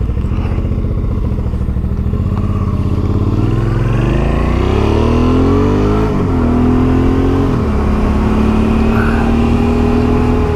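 Suzuki V-Strom 650's V-twin engine with a Delkevic aftermarket exhaust, accelerating away. Revs climb for about five seconds and drop with an upshift about six seconds in. They drop again with another shift about a second and a half later, then hold steady at cruising speed.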